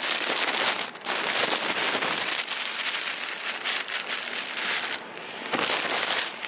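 Thin plastic produce bag rustling and crinkling loudly as it is handled close to the microphone while potatoes are bagged, with a brief pause about a second in.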